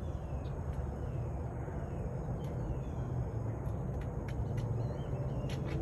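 Outdoor background: a steady low hum, with a few faint high bird chirps and a few soft clicks.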